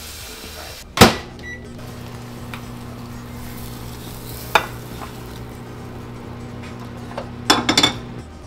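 Tap water runs briefly, then comes a sharp clack, and a microwave oven hums steadily as it heats a bowl of cream of rice and water. A single click sounds midway, and a quick cluster of clicks comes near the end as the hum stops.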